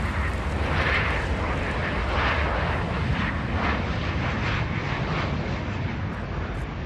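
Jet engines of a Ryanair Boeing 737 on final approach to land, a steady jet rumble and roar passing by, easing slightly towards the end.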